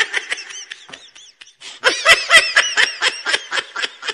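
A woman laughing in quick repeated high-pitched bursts, fainter at first and stronger from about two seconds in.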